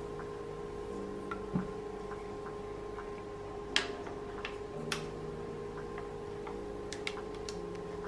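Quiet background music of sustained notes, with a few light, irregular clicks and taps from a stainless steel mixing bowl and silicone spatula as marbled cake batter is scraped and poured.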